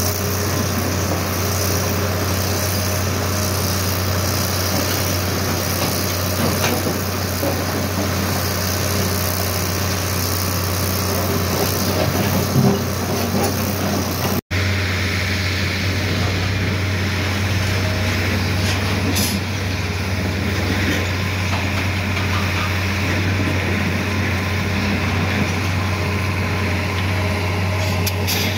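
Hitachi EX270LC hydraulic excavator's diesel engine running steadily with a deep hum, with a few short knocks as it works in the stone.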